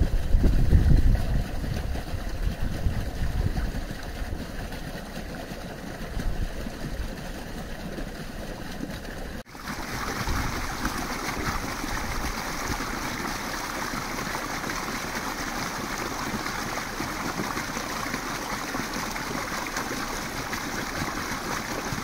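A meltwater brook running and murmuring. For the first few seconds a low rumble lies under it, fading away. About nine seconds in the sound cuts abruptly to a louder, brighter, steady babble of flowing water.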